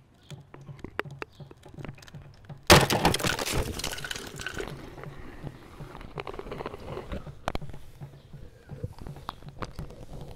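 A sudden loud crash about three seconds in, with a noisy tail that fades over a second or two, among scattered sharp clicks and crackles.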